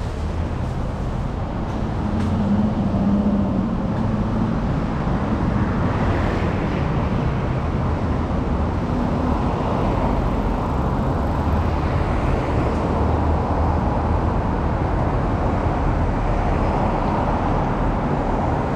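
Road traffic on a rain-wet street: a steady hiss of tyres and engine noise, with one vehicle humming more loudly a couple of seconds in.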